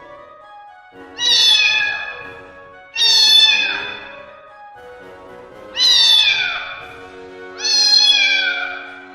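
Domestic cat meowing four times, each meow long and sliding down in pitch, over steady background music.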